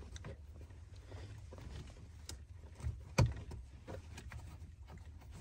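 Hands working a plastic wiring connector behind the dashboard trim: scattered light clicks and knocks, the loudest about three seconds in, over a low steady rumble.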